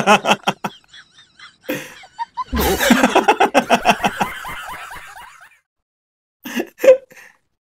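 A person laughing: a short burst of laughter at the start, then a longer laugh from about two and a half seconds in that trails off, and a couple of brief sounds near the end.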